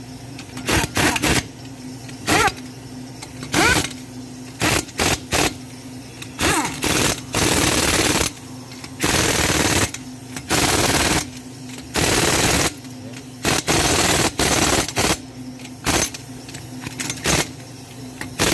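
Impact wrench tightening a van's wheel lug nuts, hammering in over a dozen short bursts, with a few longer runs of about a second in the middle.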